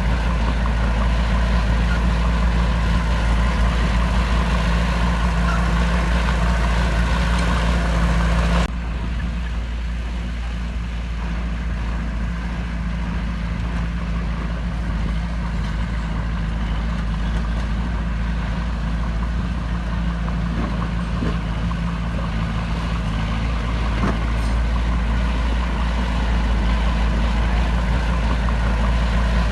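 Heavy diesel machinery running steadily under load, with a deep engine drone. The sound changes abruptly and gets a little quieter about a third of the way through.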